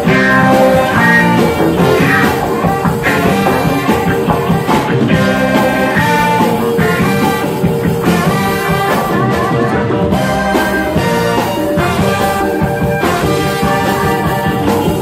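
Live cumbia band playing an instrumental passage: electronic keyboard lines over percussion, with no vocals.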